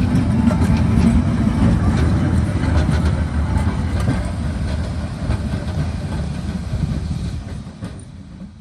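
Vintage tram running along the track: a steady low rumble of wheels on rail with scattered clicks, fading out near the end.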